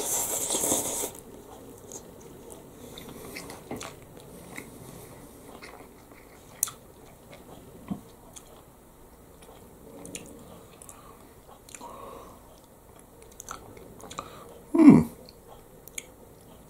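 A mouthful of instant ramen noodles being slurped in with a hiss in the first second, then quiet chewing with small wet clicks. One short, louder low sound comes near the end.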